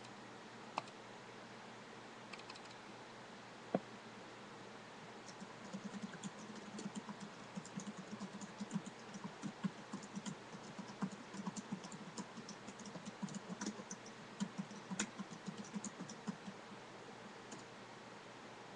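Typing on a computer keyboard: a few single key clicks, then a quick, busy run of keystrokes from about five seconds in until near the end, over a steady hiss.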